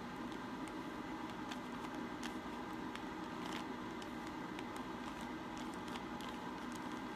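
Faint, irregular clicks of a small plastic twisty puzzle cube being turned by hand, over a steady low room hum.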